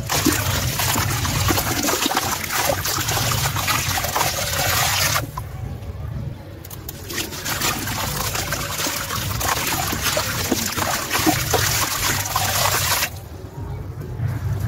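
Dry sand-cement chunks crushed by hand: a gritty crunch with a steady hiss of crumbled sand pouring into water in the bowl. It comes in two long stretches, with a short lull about five seconds in and another near the end.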